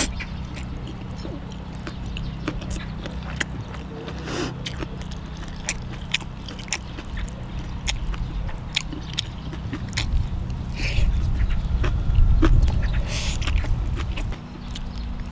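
Eating at the table: chewing and biting, with many small clicks and taps, over a steady low hum.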